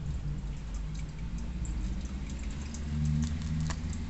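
Tarot cards handled between the hands, giving light, scattered clicks and taps of card edges, a few sharper ones near the end, over a low steady hum.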